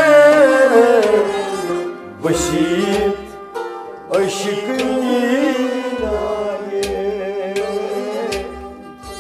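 A male voice sings a Kashmiri song with wavering vibrato, accompanied by a harmonium's sustained reed chords. Low drum strokes beat underneath, and the singing breaks briefly twice.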